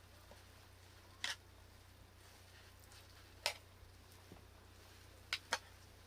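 A few sharp, light clicks or taps spaced a second or two apart, two of them in quick succession near the end, over a faint steady low hum.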